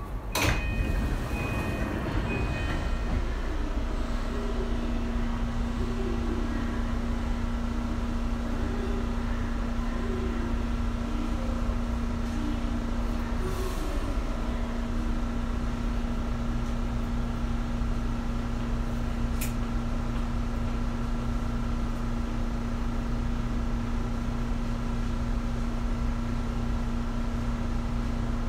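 Tokyu 2020 series electric train coming to a stop at a station: a short, loud burst of air about half a second in, then the standing train's onboard equipment giving a steady low hum with a higher whine over it.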